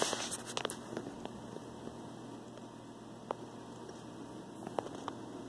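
Quiet room tone: a faint steady hum and hiss, with a few soft clicks scattered through it.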